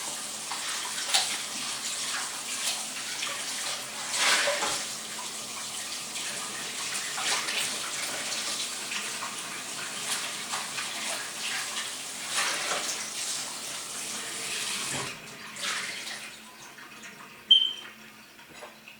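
Kitchen tap running while raw tilapia is rinsed under it, the flow splashing unevenly as the fish is turned in the stream. The water shuts off about three seconds before the end, followed by a brief sharp clink.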